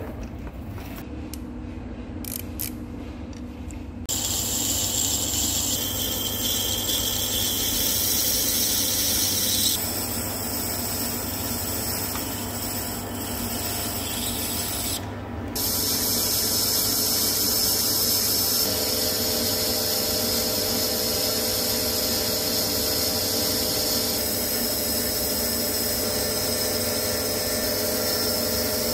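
Centre lathe running with a tool cutting a high tensile steel piston, a steady machine hum under the hiss of the cut as chips come off. The cutting sound changes abruptly several times, louder from about four seconds in.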